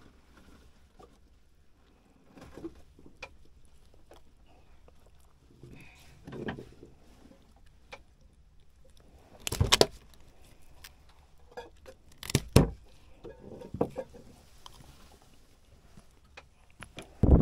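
Scattered knocks and thuds of handling on a fishing boat, with the two loudest sharp knocks about ten and twelve seconds in and quieter bumps and rustles between.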